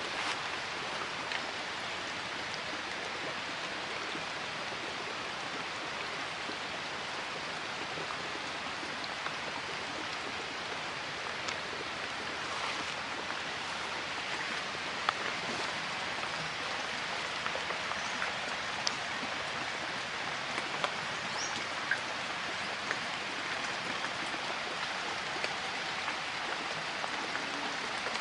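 Water running along an open split guadua-bamboo channel: a steady rushing trickle, with a few faint drip-like ticks.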